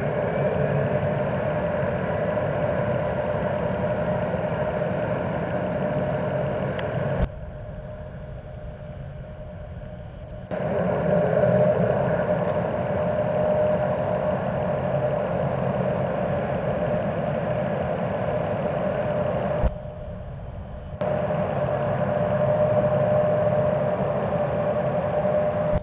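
Jet aircraft engines running steadily: a constant whine over a low rumble. The sound drops abruptly to a quieter background twice, for a few seconds about a third of the way in and briefly later.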